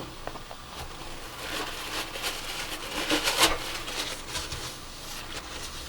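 Paper towel rubbing and rustling in a series of short wiping strokes as excess silicone sealant is wiped from around a sink rim. The strokes are loudest in the middle.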